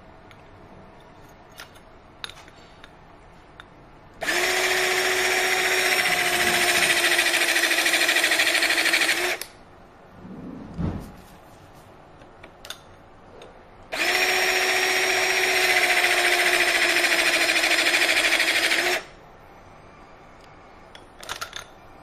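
Motor of a BE HC 300 battery-powered hydraulic crimping tool running twice for about five seconds each, a steady whine as it drives the crimping dies closed on an aluminium tube. A thump and a few small clicks of handling fall in the gap between the two runs.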